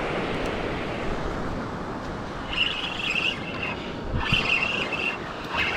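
Surf washing on the beach with wind on the microphone, and three short high-pitched calls or squeals from about two and a half seconds in.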